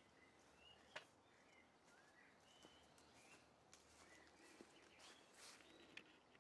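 Faint birdsong: scattered short chirping and whistled notes over a quiet background, with a soft click about a second in.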